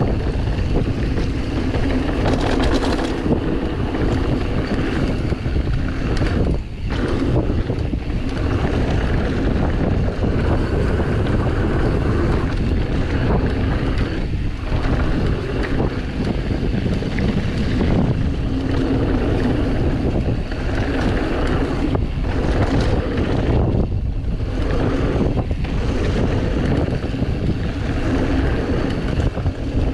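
Wind rushing over the microphone with tyre and frame rattle from a mountain bike riding fast down a dirt trail, a steady noisy rush with brief lulls every few seconds.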